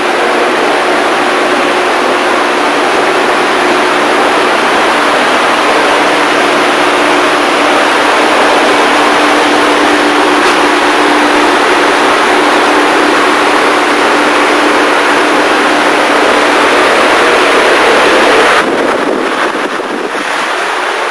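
Steady, loud machinery-like noise with a faint low hum underneath, easing a little near the end.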